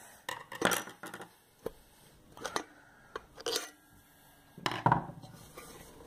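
Irregular light metallic clinks and knocks, seven or eight in all, as metal parts of a hermetic refrigerator compressor are handled inside its open lower shell.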